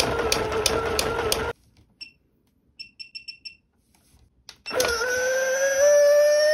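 Motor and gearbox of battery-operated dancing pumpkin toys overdriven from a bench supply at 25 V: a steady whine with a click about three times a second, which cuts off about a second and a half in. After a near-silent gap with a quick row of faint beeps, the motor starts again at 30 V, louder, its whine slowly rising in pitch.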